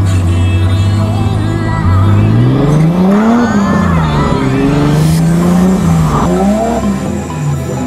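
BMW drift car's engine heard from inside the cabin, holding a steady rev, then revving up and down repeatedly from about two seconds in as the car slides, with tyres squealing.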